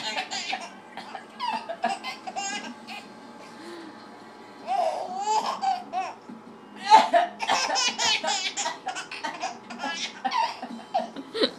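Baby laughing in repeated fits of choppy giggles, set off by an adult's fake coughing. A quieter lull comes about three to four and a half seconds in, and the loudest laughter comes around seven seconds.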